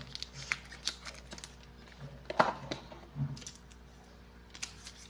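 Light handling noises: scattered small clicks and taps, with a sharper knock about two and a half seconds in, over a faint steady hum.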